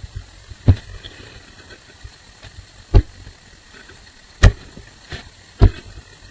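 Four loud, sharp knocks at irregular intervals, each over in an instant, with a faint low background hum between them.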